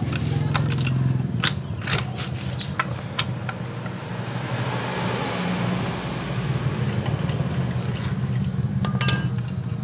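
Scattered metal clicks and taps of a T-handle socket wrench working the last bolt loose on a Suzuki Nex scooter's CVT cover, with a cluster of ringing metal clinks about nine seconds in. Underneath, a steady low engine hum.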